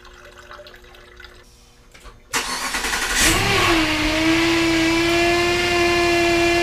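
Faint trickle of water being poured. Then, about two seconds in, the 5.7L Hemi V8 starts suddenly and runs. A loud, steady whine rides over it; the whine wobbles in pitch for a moment and then settles. The whine is the power steering pump, noisy with air bubbles still in its lines that need bleeding.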